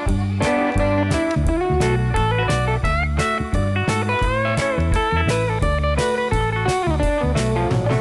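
Background music: a guitar tune with bending, sliding notes over a steady beat.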